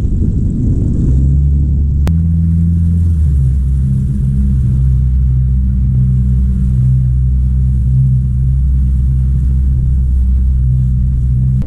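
70-horsepower outboard motor on a small open boat, speeding up about a second in and then running steadily under way, with a sharp click and a small change in pitch about two seconds in.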